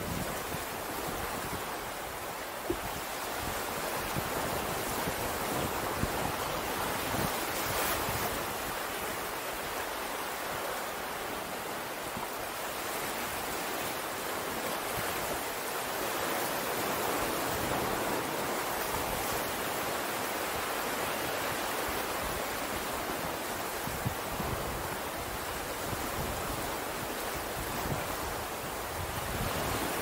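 Ocean surf washing on the shore in a steady rushing wash that swells and eases over several seconds.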